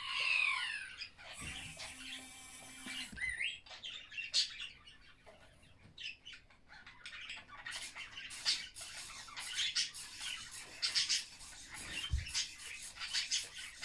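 Littlebits Space Rover toy robot: a short chirpy electronic sound with sliding pitches plays from its speaker, then a brief motor whir and scattered small clicks and rattles follow as it moves.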